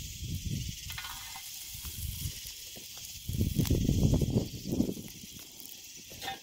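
Wood campfire burning under a porcupine, hissing and crackling as its quills singe in the flames. A few sharp crackles stand out, and a low rumble swells about halfway through.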